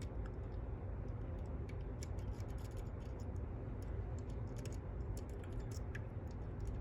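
Light, irregular metallic clicks and ticks of a probe pick tapping the pins inside a seven-pin Fontaine pump lock held under tension, with a steady low hum underneath.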